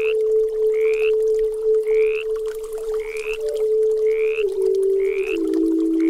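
Frog calls, each a short rising chirp, repeating about once a second over a held native flute note that steps down to lower notes twice in the second half. Soft running creek water hisses beneath.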